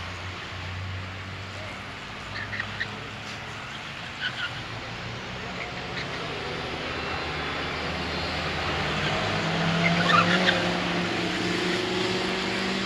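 Small car engines: a steady low engine hum, then about nine seconds in a Zastava 750's engine note rises and grows louder as the car pulls across the road. A few short high squeaks are heard, the last during the loudest part.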